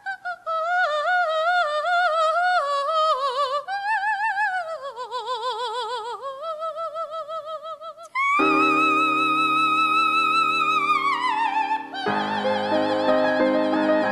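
Female soprano singing with a wide vibrato, unaccompanied at first, her line wandering downward. About eight seconds in, sustained accompaniment chords enter under a long, high held note that slides down. Then repeated keyboard chords take over.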